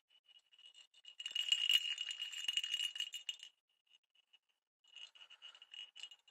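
Perforated plastic cat toy ball with a jingle bell inside, shaken by hand: a ringing, rattling jingle for about two seconds, a short pause, then softer jingling again near the end.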